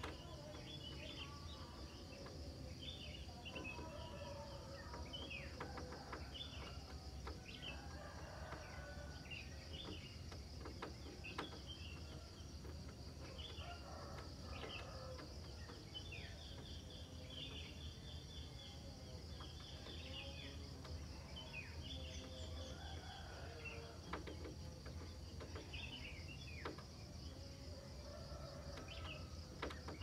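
Morning chorus of small birds chirping and calling, with many short notes that sweep downward, over a steady, pulsing, high-pitched insect trill.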